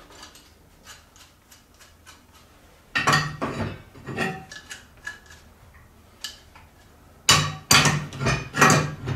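Steel adjustable wrench clanking and rattling against a welded steel test piece as it is levered on, in two bursts of knocks, one about three seconds in and one near the end; the weld is being strain-tested and holds.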